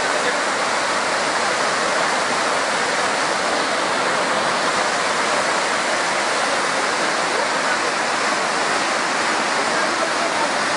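Swollen river in flood, its fast water rushing steadily and loudly with no let-up.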